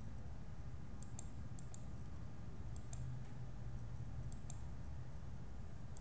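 Computer mouse button clicking in quick press-and-release pairs, four times, over a steady low hum.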